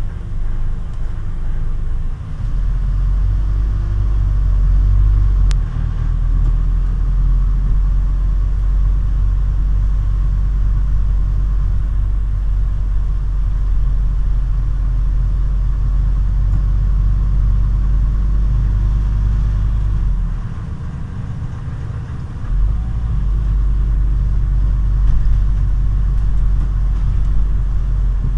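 Scania CN280UB city bus heard from inside the cabin while under way: its 9.3-litre Scania DC9 five-cylinder diesel and the road noise give a loud, steady low rumble. About two-thirds of the way through the deep drone eases off for a couple of seconds, then comes back.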